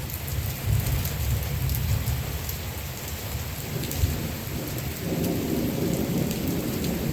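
Heavy rain pouring and pattering on surfaces during a tropical storm, with a continuous low rumble under it that swells about five seconds in.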